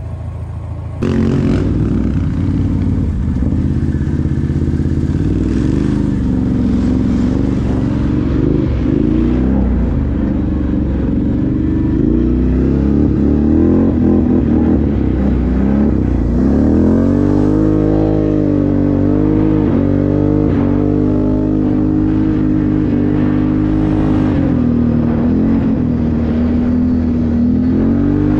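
ATV engine running under way, cutting in about a second in; its pitch rises and falls with the throttle, with a clear climb about two-thirds of the way through.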